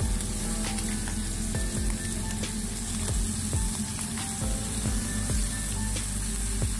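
Shrimp and squid rings sizzling as they sauté in oil in a nonstick frying pan, with scattered light clicks of wooden chopsticks against the pan as the seafood is turned.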